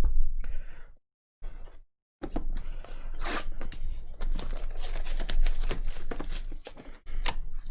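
Wrapping on sports card boxes and packs being torn open and crinkled: a dense run of crackles and tears. The sound drops out completely twice near the start.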